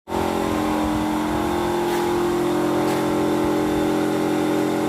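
Reconditioned Mitsubishi Fuso PS100 truck diesel engine, built to drive a shrimp-pond paddlewheel aerator, running at a steady speed with an even, unchanging drone.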